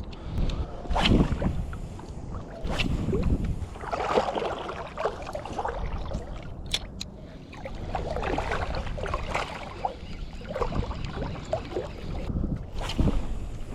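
Water sloshing and splashing irregularly around a small paddled fishing craft at sea, with a few sharp knocks and wind rumbling on the microphone.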